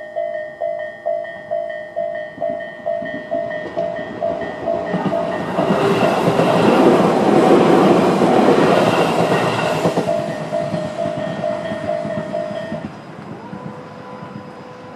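Japanese level-crossing electronic warning bell (Tobu type A) dinging about two and a half times a second while a Tobu 20400 series electric train passes over the crossing, its wheels clattering loudest from about 5 to 10 seconds in. The bell stops about 13 seconds in, leaving a faint steady hum.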